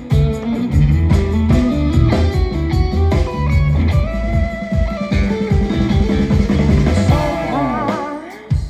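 Live rock band playing an instrumental passage: electric guitar over bass guitar and drums. Near the end a guitar note bends and wavers, and then the band drops out.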